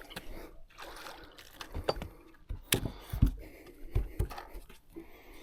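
A freshly caught bass being handled: water splashing and dripping, with scattered knocks and bumps.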